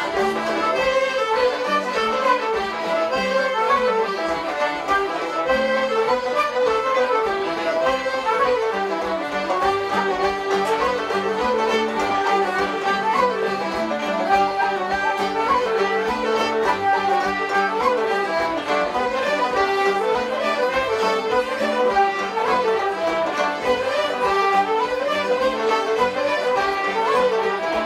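Irish traditional session music: fiddle, flute and banjo playing a tune together in unison, a continuous stream of fast running notes.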